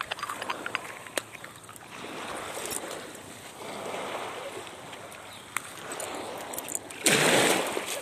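Small waves washing in and out on a sandy shore, with a louder rush of water about seven seconds in as a wave runs up the sand. Scattered light clicks sound over the wash.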